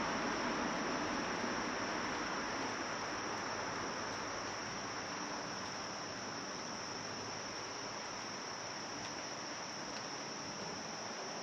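Steady high-pitched insect drone over a soft outdoor hiss that eases slightly as it goes on.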